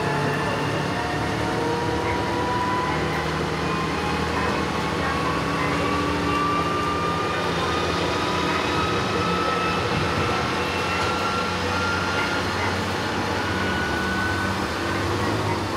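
Diesel railcar heard from inside the passenger cabin while under way: a steady low rumble of the running train with an engine and transmission whine that rises slowly in pitch as the car gathers speed.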